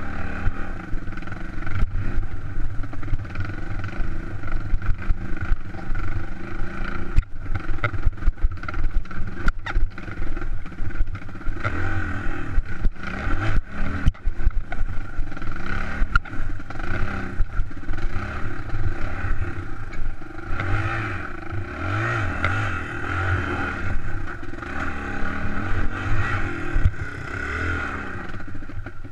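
Suzuki DR200's single-cylinder four-stroke engine running and revving up and down as the bike climbs a rocky trail, with clattering knocks from stones under the wheels, thickest in the first half.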